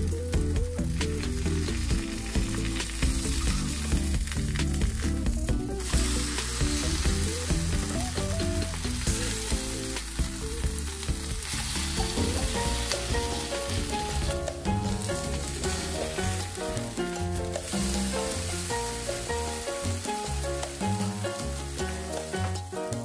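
Egg-and-vegetable patties sizzling as they fry in oil in a nonstick pan, with scrapes of a spatula as they are flipped. Background music plays underneath.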